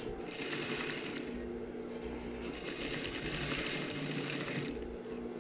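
Industrial flatbed lockstitch sewing machine stitching in two runs, one of about a second and then one of about two seconds, over a steady motor hum.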